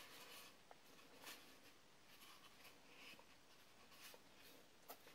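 Near silence: quiet room tone with a few faint ticks.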